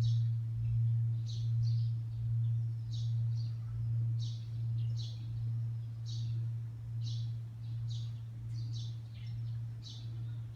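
The low hum of Sensō-ji's large bronze temple bell (bonshō) dying away after a strike, swelling and fading about once a second as it slowly decays. Birds chirp over it.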